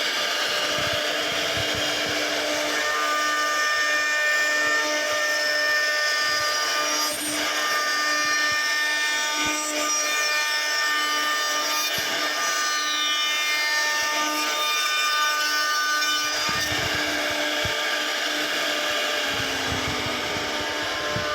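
CNC router spindle running steadily and routing wood: a constant high whine over rasping cutting noise, with a low rumble joining in about three quarters of the way through.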